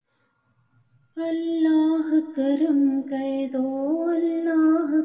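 A woman's voice singing the slow, drawn-out opening melody of a devotional Urdu prayer poem (dua), holding long notes that bend up and down. It begins about a second in after near silence.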